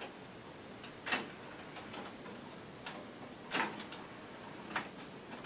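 Pioneer CT-M6R six-cassette changer's tape mechanism clicking as it runs All Rewind and sequences from one cassette to the next. The clicks are faint and irregular, about four of them, with the loudest about a second in.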